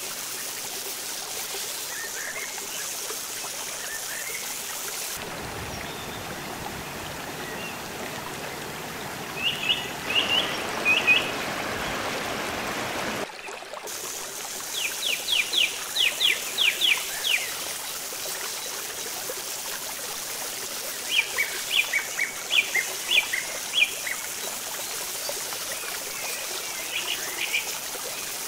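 Oil sizzling steadily on an iron tawa as marinated murrel fish slices are laid in to shallow-fry. A bird chirps over it in quick runs of high notes, four times, and these chirps are the loudest sounds.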